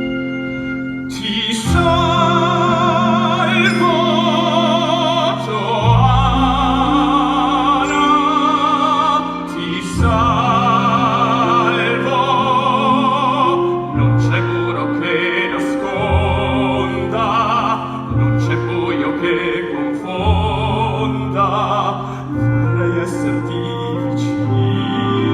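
A singer with wide vibrato, in a full-voiced operatic style, sings a musical-theatre number over instrumental accompaniment. The voice comes in about a second in.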